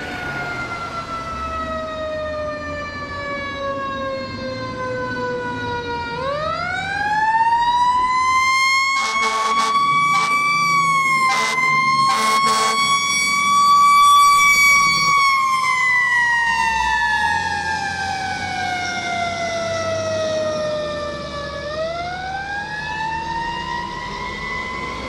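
Fire engine siren wailing: its pitch slides slowly down, sweeps back up fast, holds high, then slides down and rises again near the end. Several short, harsh horn blasts come in bursts partway through.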